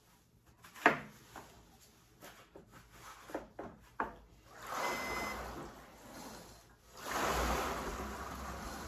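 Water rowing machine with its clear tank filled to maximum resistance, the paddle churning the water to a rushing swish on each pull. Two strokes about two and a half seconds apart come in the second half, after a few knocks and clicks, the loudest and sharpest about a second in.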